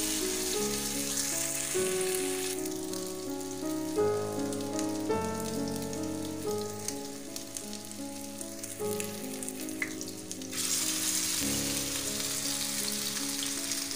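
Beef chapli kebab patties sizzling as they shallow-fry in hot oil in a non-stick pan. The sizzle is loud at the start, fades after a couple of seconds and swells again about ten seconds in as a second patty goes into the oil. Background music with piano-like notes plays underneath.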